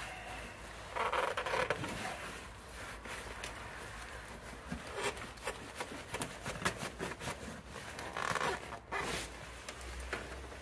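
Irregular cloth rustling and light scraping, with scattered small clicks: a rag being wiped inside an engine's oil filler neck, with a jacket sleeve brushing close by.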